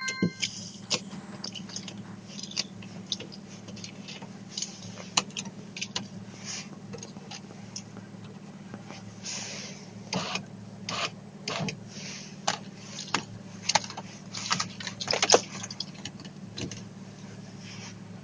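Irregular crunching and cracking of glaze ice, in sharp clicks at uneven intervals that come thicker about halfway through, over a steady low hum.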